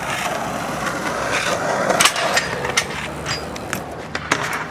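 BMX bike riding on hard ground: the tyres make a steady rolling rush, with a few sharp knocks, the loudest about two seconds in.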